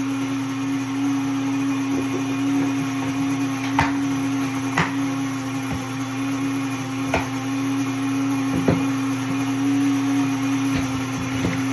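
WonderMill electric grain mill running loud and steady, milling hard white and hard red wheat berries into flour: a constant motor hum under a noisy rush, with a few sharp ticks scattered through it.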